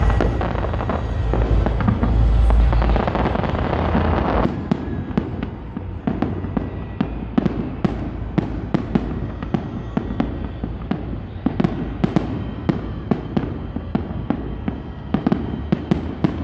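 Aerial fireworks: a dense barrage of overlapping booms for the first four seconds or so, giving way to rapid sharp cracks and pops, several a second, over a lower rumble.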